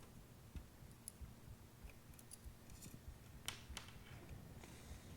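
Near silence with faint, scattered clicks and light scrapes of small metal parts and screws being handled while a laptop drive mount is taken apart, with two sharper clicks about three and a half seconds in.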